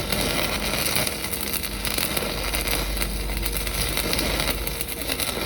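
Stick (SMAW) welding arc on a pipe joint, crackling and hissing steadily without a break.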